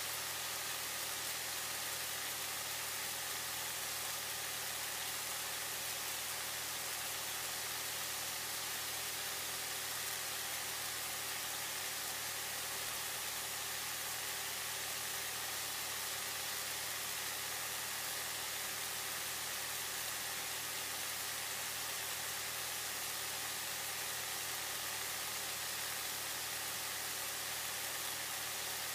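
Cessna light aircraft's piston engine and propeller droning steadily in level cruise, heard inside the cockpit under an even hiss.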